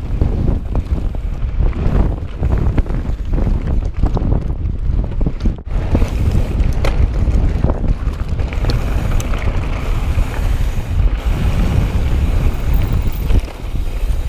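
Strong wind buffeting the microphone, with a heavy low rumble and scattered sharp clicks and rattles from the mountain bike rolling over the trail.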